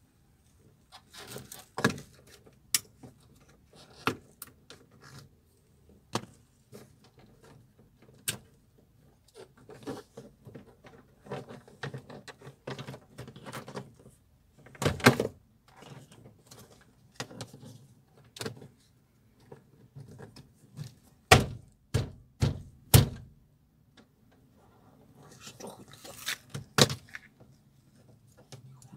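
Plastic car-door trim being handled and pressed into place: a series of scattered sharp clicks and knocks. There is a loud one about halfway and a quick run of four loud knocks about three-quarters of the way through.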